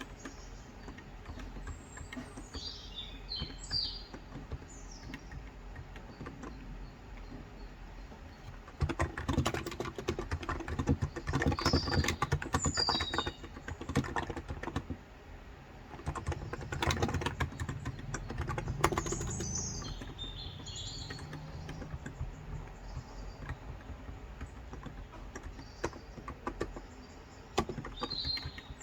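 Typing on a Cox Endeavor tenkeyless keyboard with 35 g electro-capacitive (Topre-style) switches, in runs of keystrokes that come thickest about a third of the way in and again past halfway. Birds chirp in short bursts now and then.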